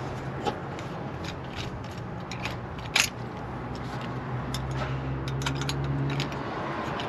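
Hands unscrewing and handling the plastic cap and dipstick of a fire engine's power steering fluid reservoir to check the level: a run of small clicks and scrapes, with one sharp click about three seconds in. A low steady hum lies underneath until about six seconds in.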